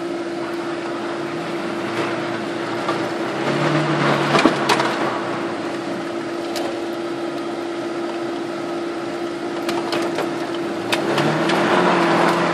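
Cabin noise of a Suzuki Vitara 4x4 driving on a snowy road: the engine runs under a steady hum, revving up about four seconds in and again near the end, with a few scattered knocks and rattles.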